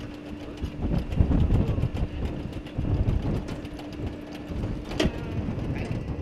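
Chain-driven lamb lifter conveyor running with metal cradles clanking and rattling, heavier thumps between about one and three seconds, and a sharp clack about five seconds in.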